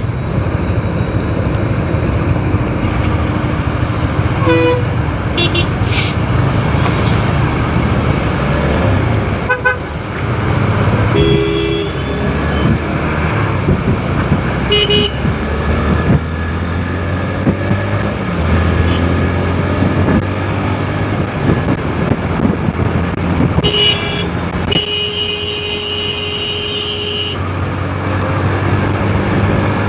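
Riding a motorcycle through city traffic: steady engine and road rumble, with other vehicles' horns honking, short toots twice and then one held for about three seconds later on.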